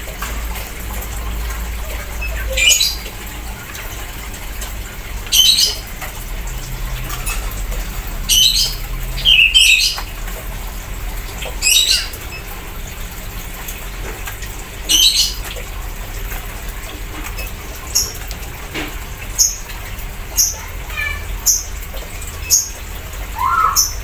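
Kaso-kaso bird giving short, high chirps every one to three seconds, coming more often near the end.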